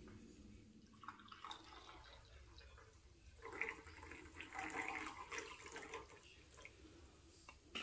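Faint splashing of liquid, in uneven bursts through the middle of the stretch.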